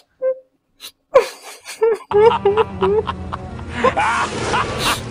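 Short gasping, whimpering voice sounds and a few sharp clicks, then music comes in about two seconds in and carries on.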